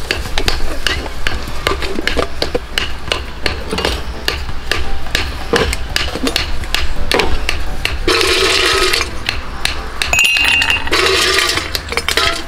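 Ice cubes clattering and clinking against the stainless steel of a wide-mouthed sports bottle as it is handled and the ice is shaken out, a long run of sharp clinks.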